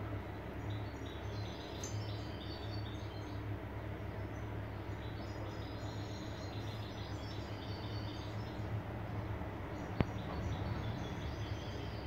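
European goldfinches twittering in quick, high chirping phrases that come and go, young birds among them learning their song. A steady low hum runs underneath, and a single sharp click sounds about ten seconds in.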